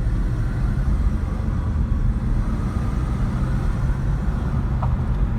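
2019 Kia Stinger 2.0T with a K&N Typhoon cold air intake, heard from inside the cabin while it drives along at a steady pace: a steady low rumble of engine and road noise from its turbocharged four-cylinder.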